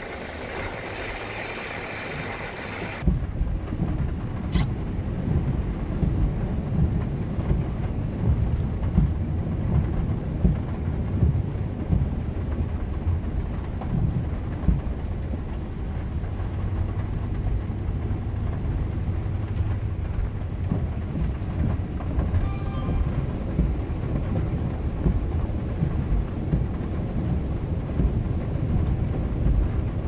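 Steady rain hissing for the first three seconds, then a sudden change to a loud, uneven low rumble from inside a vehicle driving along a waterlogged road.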